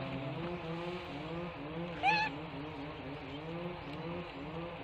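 A macaque gives one short, high squeak about two seconds in, over a steady low pulsing drone in the background.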